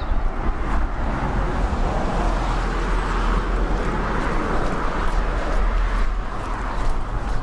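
Road traffic noise: motor vehicles running along a road, a steady rush with a deep low rumble.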